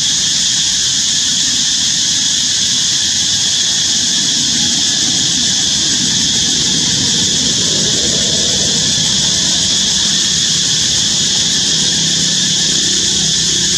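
Steady, high-pitched drone of cicadas, unbroken throughout, over a low rumble. Near the end a low steady hum joins in.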